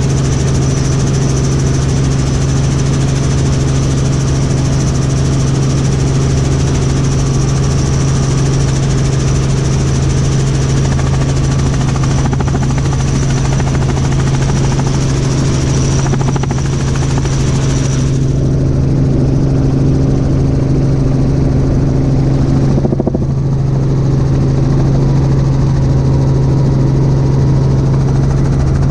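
Robinson R44 helicopter in flight, heard from inside the cabin: steady engine and rotor noise with a strong constant low hum. The higher hiss drops away about two-thirds of the way through.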